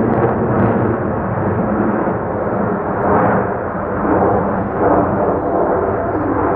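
F-35A Lightning II's single Pratt & Whitney F135 turbofan engine roaring overhead during a manoeuvring demonstration flight, a loud, continuous jet rumble that swells a couple of times as the jet turns.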